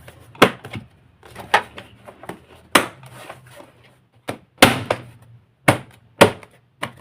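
Hard plastic knocks and clicks, about seven at irregular intervals, as vacuum cleaner housing parts are handled and fitted back together.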